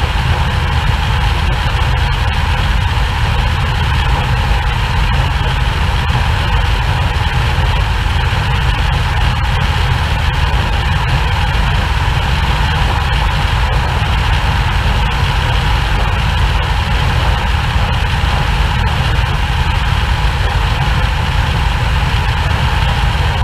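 Cessna 150's four-cylinder piston engine running steadily in cruise flight, heard from a camera mounted outside on the wing, with a constant rush of airflow over it.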